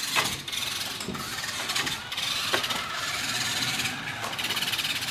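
Battery-powered RC car running, its electric motor and gears whining as it drives over a stone patio, with a few short clicks.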